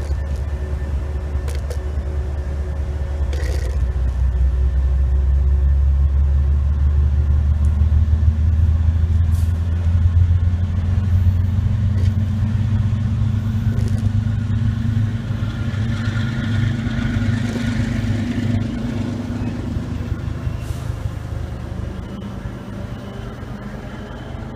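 MBTA HSP46 diesel locomotive's engine rumbling with a deep hum as it moves a commuter train away. The rumble swells over the first several seconds, then fades steadily as it draws off.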